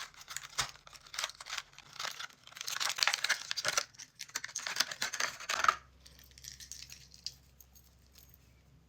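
Packaging being crinkled and torn open by hand, a dense crackle with small clicks that stops about six seconds in, followed by a little faint rustling.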